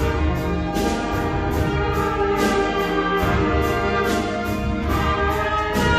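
Elementary-school wind band playing: brass and woodwinds hold chords over percussion keeping a steady beat of about two strikes a second.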